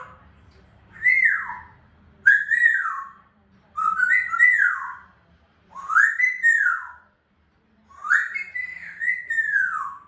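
African grey parrot whistling: about five whistles, each rising and then falling in pitch, spaced a second or so apart. The last one, near the end, is longer.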